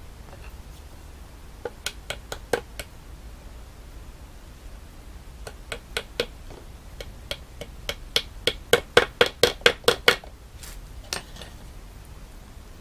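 A small hammer tapping stapler staples through insect mesh into a wooden frame: a short run of about six light taps, then a longer run of taps that quickens before stopping, with a few softer taps near the end.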